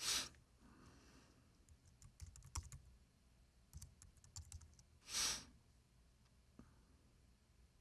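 Faint typing on a computer keyboard: a run of light, irregular key clicks from about two to four and a half seconds in. Two short breath-like puffs of hiss, one at the very start and one about five seconds in, are louder than the keys.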